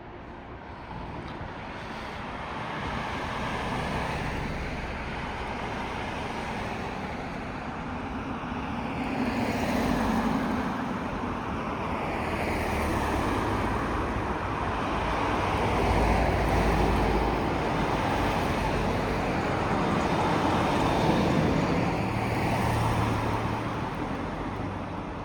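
Road traffic going past: a broad rush of vehicle noise with a low rumble that builds, swells and dips a few times, and eases off near the end.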